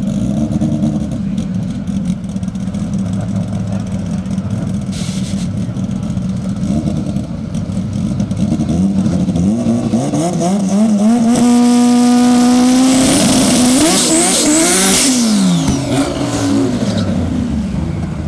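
Drag car engine idling with light blips, then revving up and held at high revs for about four seconds during a burnout, then dropping back.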